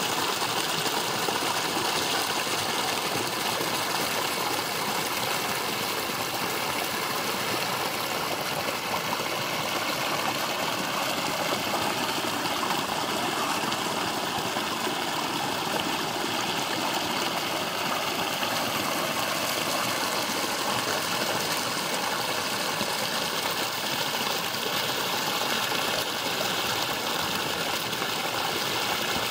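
Small spring-fed creek running and splashing over grass and low spills, a steady, even flow of water.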